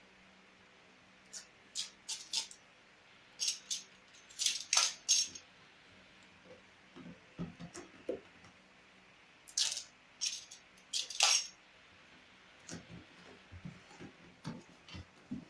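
Irregular clicks, clinks and short rustles of tools and packing material being handled, in two busy spells with softer knocks near the end.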